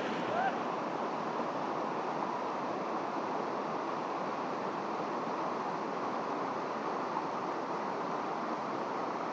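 A high, fast river rushing steadily: an even roar of running water.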